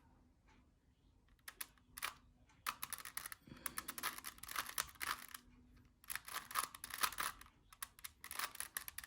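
Plastic Rubik's Cube being twisted quickly by hand: fast clicking and rattling of the turning layers, in several flurries.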